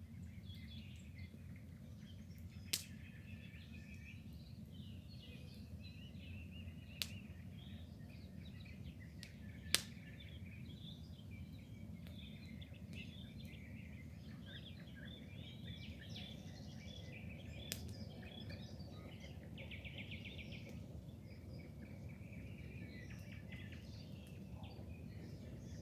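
Several small birds chirping and singing over a steady low rumble, with a fast buzzy trill about two-thirds of the way through. Four sharp clicks cut through.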